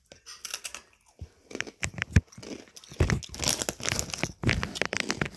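A Takis Fuego chip bag crinkling and rustling as it is handled, with sharp crackles that grow denser in the second half.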